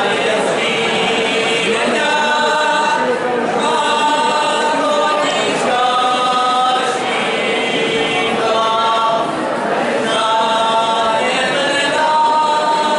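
A group of young men singing a Moravian folk song together, without instruments, in held phrases of about two seconds with short breaths between them.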